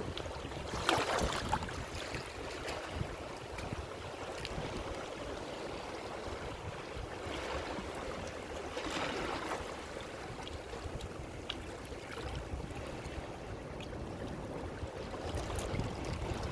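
Ocean waves breaking and washing on a shore, a steady rush with louder swells about a second in, around eight to nine seconds in and near the end. A low rumble runs under it, partly wind on the microphone.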